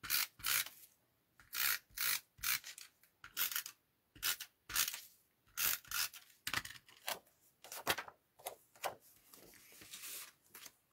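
A tape runner rasping in many short, irregular strokes as adhesive is laid onto card-stock layers.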